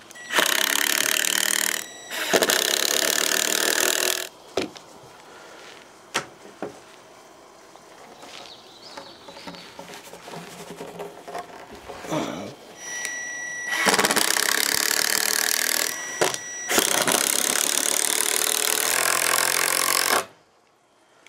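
Cordless drill driving screws into pine lumber, fastening a cleat across clamped bench-seat slats. It runs in four bursts of about two seconds each: two at the start and two more from about two-thirds of the way in, with a few clicks and handling knocks between them.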